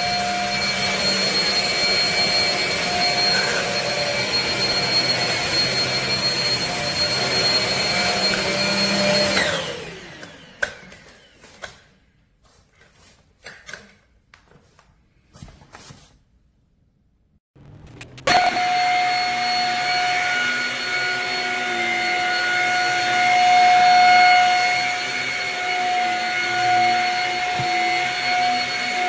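Shark Rocket corded stick vacuum running with a steady motor whine, then switched off about ten seconds in, its pitch falling as the motor winds down. Several seconds of quiet with a few handling clicks follow, then a vacuum starts abruptly and runs with a steady whine.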